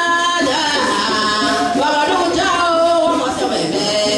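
Music with a man singing, his held notes sliding up and down in pitch.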